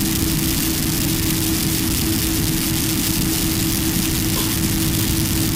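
Airbus A320 cabin noise heard from a window seat while taxiing: the engines at low thrust and cabin air give an even rush with a steady low hum, without any rise in power.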